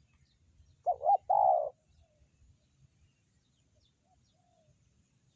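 Spotted dove cooing: one loud call about a second in, a quick wavering double coo followed by a longer held coo. Fainter short coos from other doves sound around it.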